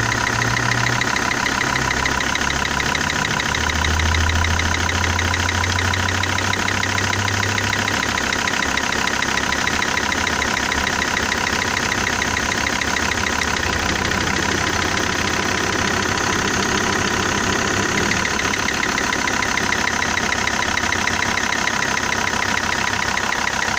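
Car engine idling steadily, its rebuilt number-three injector disconnected in a test for a ticking knock; the owner finds the ticking goes away when that injector is cut out, pointing to the injector as its cause.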